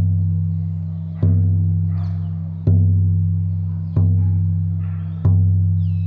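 A deep drum beaten slowly and evenly, about one stroke every second and a third, each stroke ringing on low and fading before the next; four strokes fall in the span.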